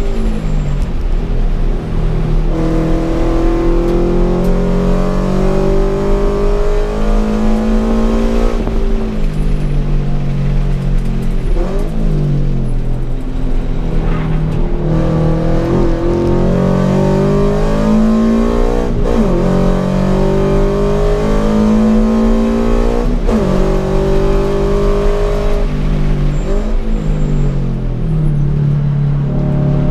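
Toyota GT86's turbocharged, straight-piped 2.0-litre flat-four at racing speed on track, heard from inside the cabin. The engine note climbs in pitch through each gear and drops back sharply at each shift or braking point, several times over.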